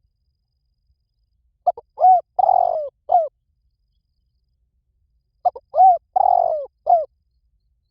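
Spotted dove cooing: two phrases about four seconds apart, each a few short coos with one longer note in the middle.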